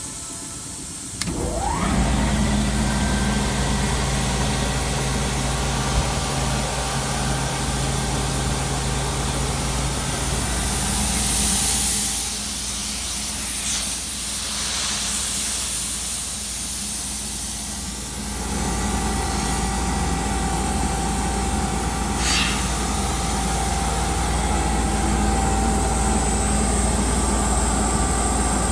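Ingersoll-Rand air compressor starting up about a second in and then running steadily with a low hum. Midway a loud hiss lasts several seconds over the running machine.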